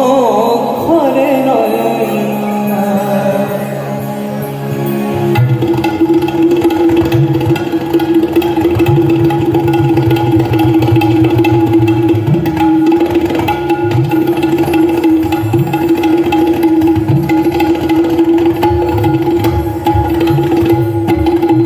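Harmonium holding a steady drone-like chord under tabla accompaniment, the bass drum's strokes bending in pitch, in a live Bengali classical-style song. A male voice sings a brief ornamented, gliding phrase at the start, and the tabla playing fills out about five seconds in.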